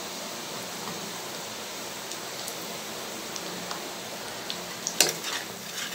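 Chopped carrots, beans and scrambled egg sizzling steadily in hot oil and ghee in a nonstick pan, a fresh lump of ghee melting in. A couple of sharp clicks near the end.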